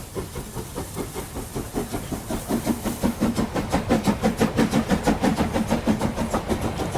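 Battery-powered TrackMaster toy train running along plastic track, its small motor humming under a fast, even clicking that gets louder about halfway through as it comes closer.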